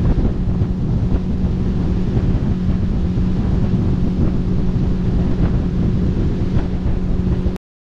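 Outboard motor running at speed with a steady hum as a small boat planes across the water, under heavy wind buffeting on the microphone. The sound cuts off abruptly near the end.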